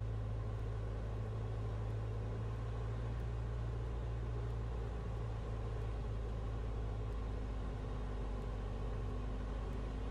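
Light aircraft's single piston engine and propeller droning steadily, heard inside the cabin on final approach. A faint extra tone joins the drone about seven seconds in.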